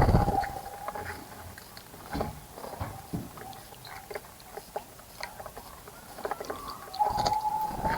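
Scattered small splashes and clicks, typical of birds bathing and fluttering in a garden bird bath. At the start and again about seven seconds in, a held mid-pitched tone sounds over a low rumble.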